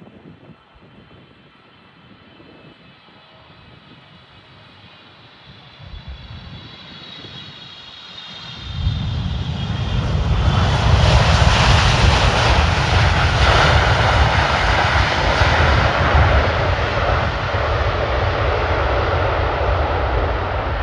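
Landing wide-body jet airliner: a faint engine whine with several high tones as it comes in, then about nine seconds in a sudden loud, deep jet noise as the thrust reversers come on after touchdown, holding steady.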